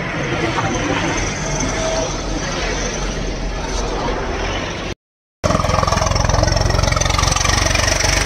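Roadside traffic noise, then after a brief dropout about five seconds in, a louder, steady engine running close by with an even low throb, like a heavy vehicle idling.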